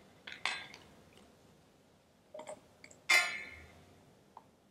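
Faint handling clicks of altar vessels, then one brighter ringing clink about three seconds in as the metal chalice is picked up and raised.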